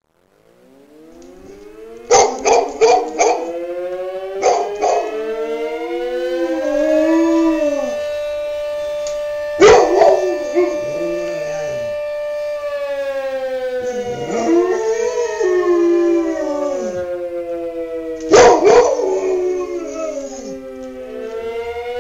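A fire siren winds up slowly in pitch, holds, then winds down, while a dog howls along with it. The dog also gives sharp loud barks: a quick run of them about two seconds in, and single ones around ten and eighteen seconds.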